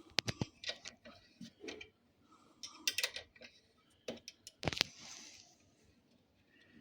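Short metallic clicks and taps from a hand tool turning a bolt on a motorcycle's rear brake caliper, tightened by hand rather than to full torque. The clicks come in irregular small clusters, the loudest about four and a half seconds in.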